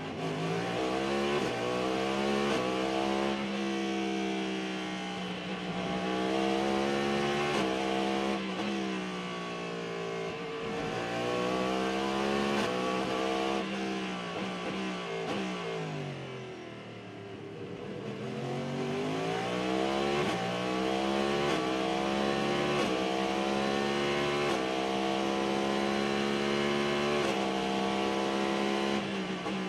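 In-car sound of the Cadillac V-Series.R GTP prototype's V8 engine at racing speed. The revs climb in steps through the upshifts, and fall away twice under braking and downshifts, about ten and sixteen seconds in, before climbing again.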